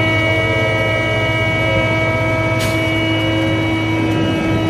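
Glider launch winch engine running steadily, with a constant hum of several tones over a low rumble, as the launch cable falls away after the glider has released. A single sharp click comes about two and a half seconds in.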